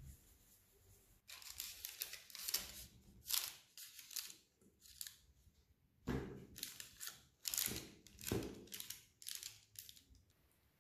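Baking parchment rustling and crinkling in a frying pan as a rope of shortcrust dough is laid around the pastry base, in a series of short crisp bursts, a few with a dull knock against the pan.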